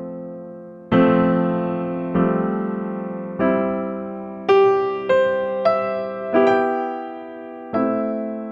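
Slow background piano music: notes and chords struck about once a second, each left to ring and fade.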